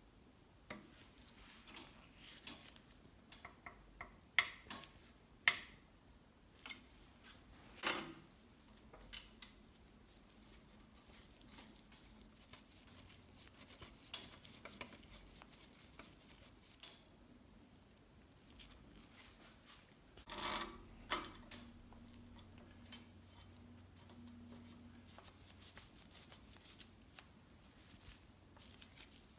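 Small metal bicycle components clicking and clinking as gloved hands handle and fit them: a front derailleur, then brake calipers on a steel road frame, one brake's mounting nut turned with a hex key. Scattered sharp clicks and taps, the loudest about five seconds in and another cluster around twenty seconds, with soft rubbing between.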